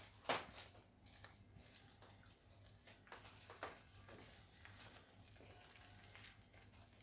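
Near silence with faint kitchen handling sounds: one sharp tap about a third of a second in, then a few soft taps and wet scrapes as tomato sauce is spread over pizza dough in a baking tray.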